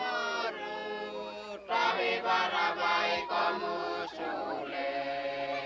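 Voices chanting a prayer together in long held notes, in three phrases with short breaks between them.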